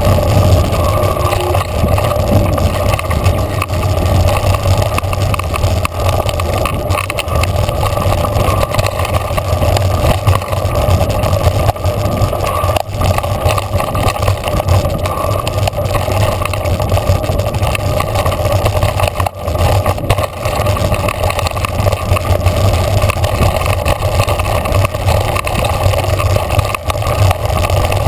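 Mountain bike riding fast down a dirt trail: loud, steady wind rush on the bike-mounted camera's microphone, with tyres rolling over the dirt and the bike rattling over rough ground in dense small knocks.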